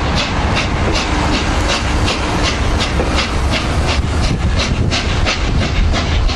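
Peppercorn A1 Pacific steam locomotive 60163 Tornado, a three-cylinder engine, working a train of coaches away past the platform. It is loud and steady, with a rapid even beat over the continuous rumble of the passing coaches.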